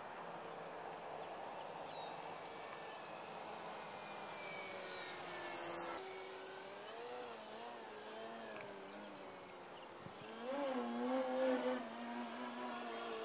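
Extreme Flight 48-inch MXS electric RC aerobatic plane in flight: its Torque 2814 brushless motor and 12x6 APC propeller whine, the pitch wavering up and down. The whine swells to its loudest about two-thirds of the way in.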